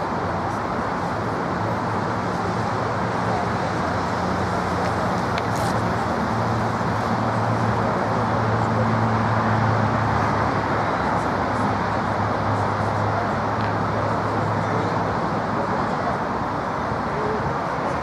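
Distant road traffic: a steady rumble with a low engine hum that swells through the middle and fades near the end.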